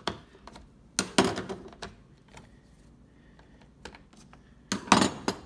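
Scattered clicks and knocks of a screwdriver and handling of the plastic housing of a 2017 Honda Accord LED headlight as the screws holding the lens to the housing are taken out. The loudest clatter comes about a second in and again near the end.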